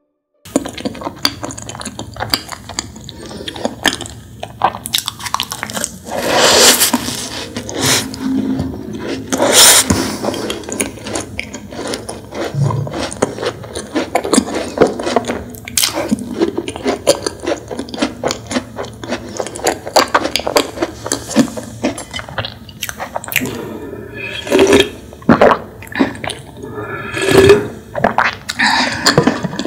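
Close-miked eating of a macaron: a few louder bites among wet, sticky chewing and mouth clicks.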